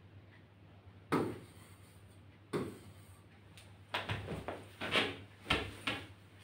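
Scattered dull knocks and thumps: one about a second in, another at two and a half seconds, then a quicker run of them over the last two and a half seconds. A low steady hum lies under them.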